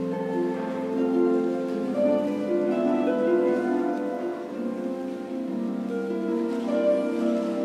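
Concert harps playing classical music together, plucked notes ringing over one another.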